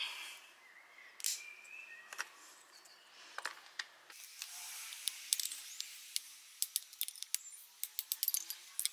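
Small dry wood sticks being split and snapped with a knife blade into kindling: a run of sharp cracks and clicks, scattered at first and coming several a second in the second half.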